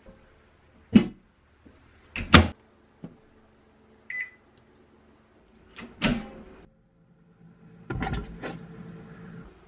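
Microwave oven being handled: a series of sharp clicks and knocks from its door and buttons, with a single short keypad beep about four seconds in.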